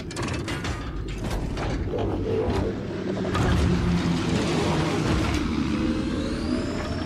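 Piston-engined warplane sound effect: a continuous engine drone overlaid with dense mechanical rattling and clatter, and a faint rising whine near the end.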